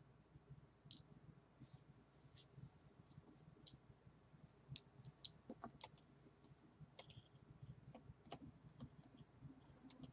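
Faint, irregular clicking and ticking, a few clicks a second at uneven spacing, over a low steady room hum.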